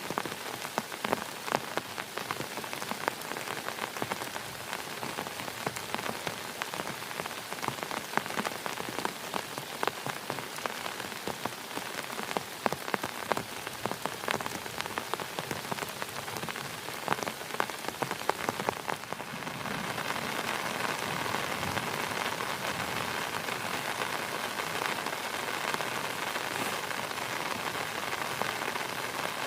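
Heavy rain falling, with many sharp individual drop hits; about two-thirds of the way through it turns into a denser, steadier hiss.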